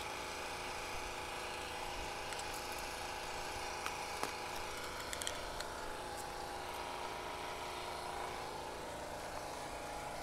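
Steady hum of an engine running at a constant idle, with a few light clicks in the middle.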